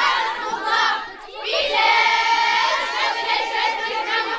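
A crowd of women ululating with high, sustained, trilling voices, the zaghareet of celebration, with a short break about a second in.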